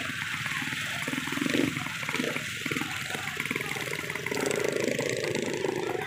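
Hubbub of a dense crowd mixed with motorbike engines running, a steady noisy din with no clear single voice.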